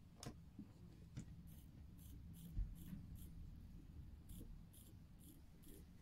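Faint winding clicks of an NH35A automatic movement as its crown is turned: a run of small high ratchet clicks, about two to three a second, with a short pause near the middle, plus a couple of sharper clicks near the start and a low bump of handling. The keyless winding is working smoothly.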